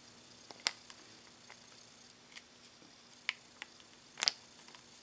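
Faint, scattered small clicks of a T8 Torx screwdriver turning a tiny screw into a hard drive's metal sled, with a short cluster of clicks about four seconds in.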